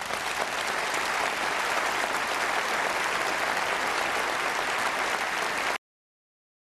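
Large crowd applauding steadily, then cutting off suddenly about six seconds in.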